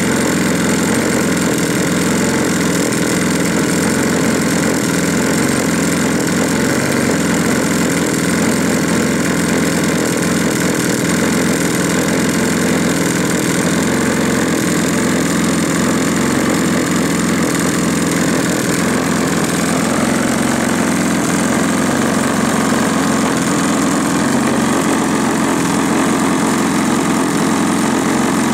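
Single-cylinder two-stroke chainsaw engine (a GL5200M) driving the propeller of a large model aeroplane, running steadily at idle on the ground.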